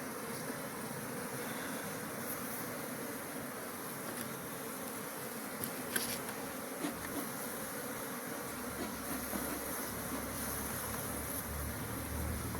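Honeybees buzzing steadily in a mass, a continuous hum. A few faint ticks come about halfway through, and a low rumble joins in over the last few seconds.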